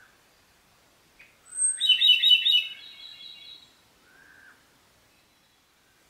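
Ryukyu robin singing one song phrase about a second and a half in: a rapid, rattling trill of high notes that thins into a short run of steady higher notes, lasting about two seconds.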